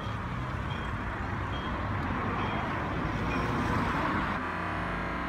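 Steady outdoor street noise with faint short high tones repeating about once a second; it cuts off suddenly near the end as background music with guitar starts.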